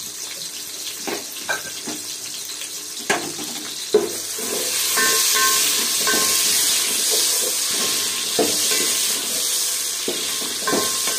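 Sliced onions and whole garam masala spices sizzling in hot oil in an aluminium pot as a wooden spoon stirs them. The sizzle grows louder about four seconds in, and the spoon knocks against the pot several times.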